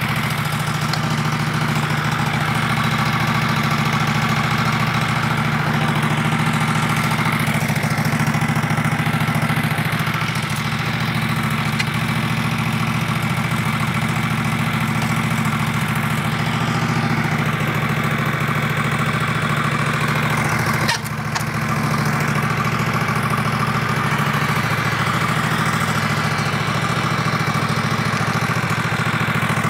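The twin-cylinder Vanguard gas engine of a Grillo G131 walk-behind tractor running steadily, with one brief click and dip about two-thirds of the way through.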